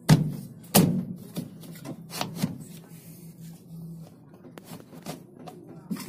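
Knocks and clatter of a washing machine's plastic body and base panel being handled, two sharp knocks near the start loudest and a few lighter ones after, over a low steady hum that stops about two-thirds of the way through.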